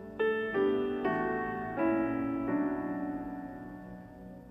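Background music: soft piano chords, a new chord struck several times in the first two and a half seconds, then left to ring and fade.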